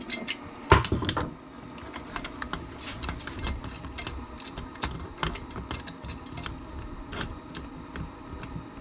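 Steel pipe wrench clattering and clinking as it is set onto a stuck threaded part of a Kawasaki Brute Force 650 front differential, loudest in about the first second. Scattered light metal ticks and creaks follow as the wrench is strained against the part.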